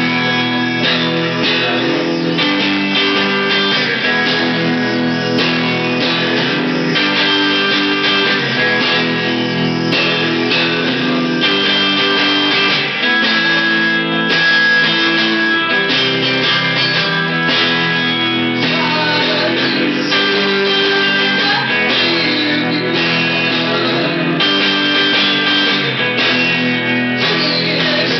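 Electric guitar played through an amplifier, held chords ringing and changing every second or so.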